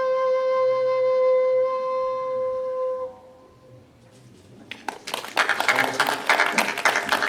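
A quena (Andean end-notched flute) holds one long, steady final note that stops about three seconds in. After a short lull, audience applause starts near the end.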